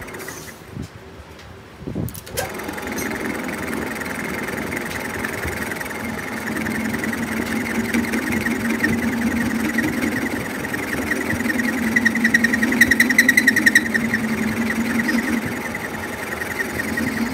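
Metal lathe running with its four-jaw chuck spinning, a steady low hum under a higher whine. The sound comes in about two seconds in and is loudest for a few seconds past the middle.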